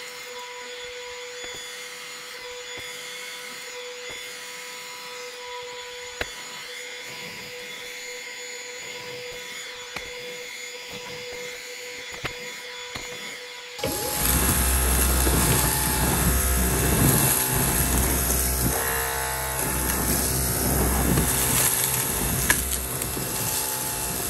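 Vacmaster Joey Compact vacuum running with a steady high whine as its brush nozzle sucks sand and crumbs off pool-table felt, with a few sharp ticks of grit going up the nozzle. A little over halfway through, the sound cuts suddenly to a louder Dyson V15 cordless stick vacuum running, with a deeper rumble, as it picks up the heaped mess.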